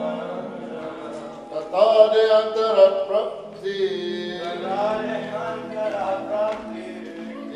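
Devotional mantra chanting: voices singing a slow, drawn-out melodic chant over steady held tones, loudest from about two to three seconds in.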